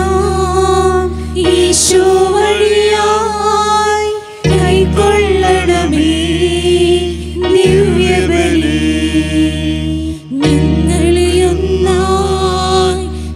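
Malayalam offertory hymn sung over sustained keyboard-like chords. The phrases are long and held, with short breaks about four and ten seconds in.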